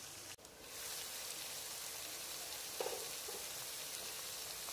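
Mutton and cauliflower sizzling gently in a pan over a medium-low flame: a soft, steady hiss, with a brief dropout just after the start and a couple of faint clicks about three seconds in.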